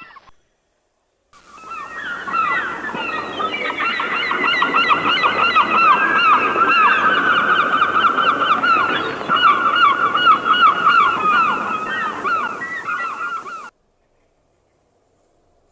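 A large flock of birds calling together: many short, falling calls overlapping in a dense chorus. It starts about a second in and cuts off abruptly near the end.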